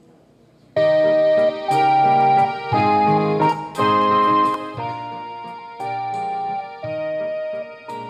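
Electronic keyboard playing a melody of steady, held notes that change about once a second, starting suddenly about a second in.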